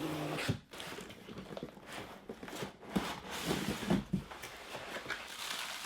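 Packaging being handled: steady rustling with scattered clicks and a few soft thumps about halfway through.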